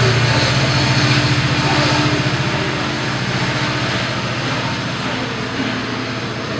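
Diesel locomotive of a departing GO Transit commuter train, a steady low engine drone that slowly fades as the train pulls away.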